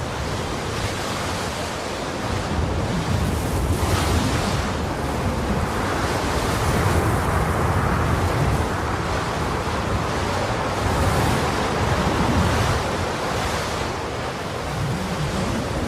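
Horror suspense sound effect: a dark, noisy rumbling ambience like wind or surf, swelling and easing every few seconds.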